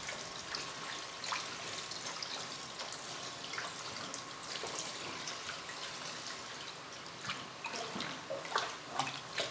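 Thin stream of ethanol trickling from a plastic measuring jug into a tub of liquid-soap mixture, while a wooden spoon stirs and sloshes the liquid with small splashes. The pouring stops partway through and the stirring carries on.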